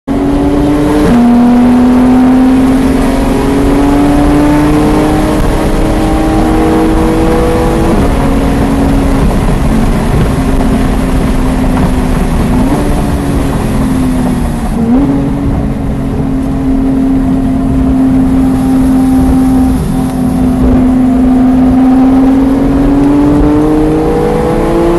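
Porsche 991.1 GT3's naturally aspirated 3.8-litre flat-six heard from inside the cabin under hard acceleration. The pitch climbs steadily through each gear and drops sharply at the upshifts, about a second in, around eight seconds and again at the very end. There are briefer rises and falls of revs in the middle.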